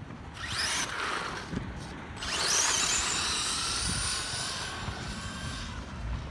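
Electric radio-controlled car's motor whining: a short rising burst, then about two seconds in a longer, louder run that climbs in pitch and holds high as the car speeds away, easing off near the end.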